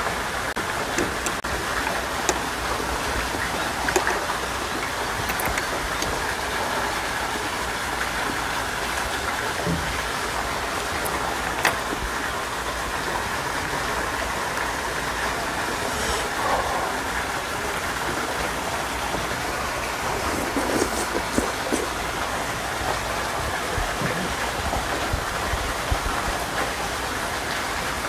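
Steady rain falling, with a few short sharp clicks of a spoon against a bowl on top.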